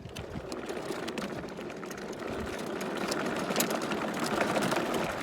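Small gasoline engine of lawn equipment running steadily, gradually getting louder.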